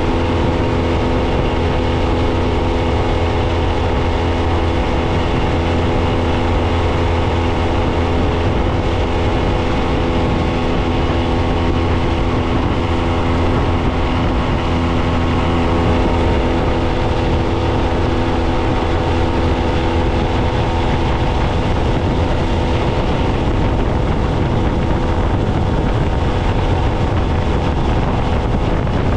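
Yamaha 25 hp four-stroke outboard running steadily at speed under way, with the rush of water from the wake and wind on the microphone. The engine's steady drone grows less distinct about halfway through, leaving mostly the wind and water noise.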